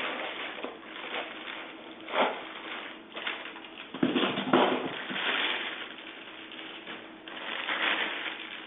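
Packaging being handled: irregular rustling and crinkling with a few knocks as parts are lifted out of the box.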